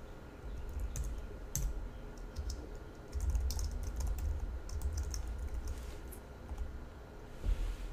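Typing on a computer keyboard: irregular runs of key clicks with dull thumps underneath.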